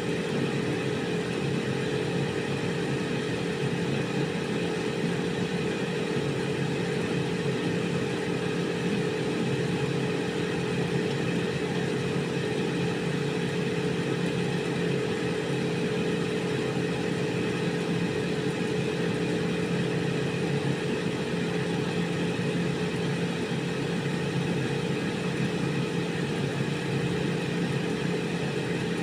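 Air fryer running: its fan motor gives a steady hum with a constant low drone and a higher whirring tone, unchanging throughout.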